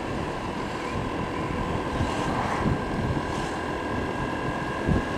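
Honda PCX scooter's single-cylinder engine running steadily at road speed, with a thin steady whine over a low rumble. Wind buffets the lavalier microphone.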